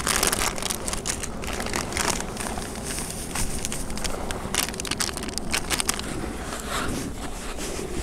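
Plastic packet crinkling and rustling in the hands as breadcrumbs are shaken out of it into steamed pearl barley, then the damp bait mixed by hand, with irregular crackles throughout. A low wind rumble on the microphone runs underneath.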